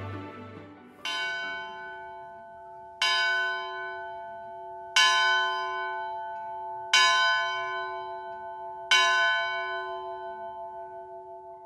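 A single church bell struck five times, about two seconds apart, each strike ringing on and slowly dying away with a wavering hum. Background music fades out just before the first strike.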